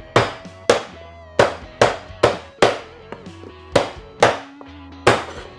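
A meat cleaver chopping bone-in chicken into pieces on a cutting board: about nine sharp chops at irregular intervals of roughly half a second to a second. Background music plays underneath.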